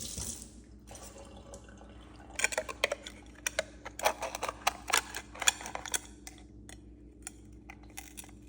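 Running tap water stops about a second in, then a run of sharp clicks and scrapes as the hard, tightly closed shell of a large oyster is handled and pried at, thinning out toward the end.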